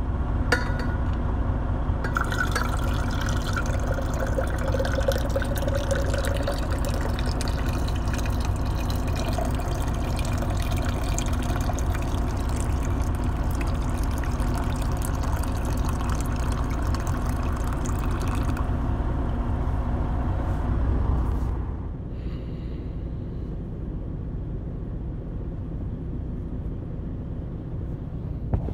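Coffee poured from a vacuum flask into a stainless steel tumbler, a steady stream that stops after about twenty seconds.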